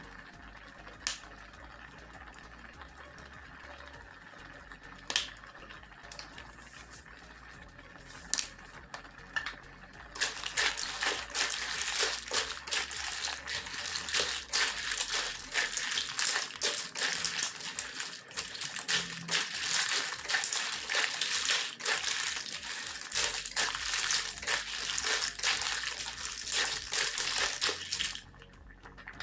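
Clams stir-frying in a hot pan: a few lone clicks, then about a third of the way in a loud, dense sizzling crackle full of small clicks sets in and cuts off suddenly near the end.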